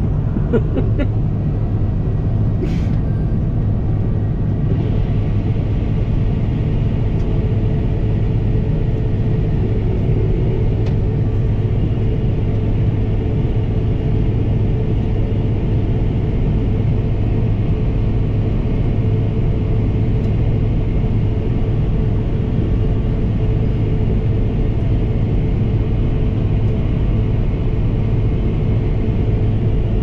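New Holland CX5090 combine harvester running, heard from inside the cab: a steady engine and threshing drone with a constant low hum, while wheat is unloaded through the unloading auger into a trailer alongside. About five seconds in, a brighter hiss joins the drone and stays.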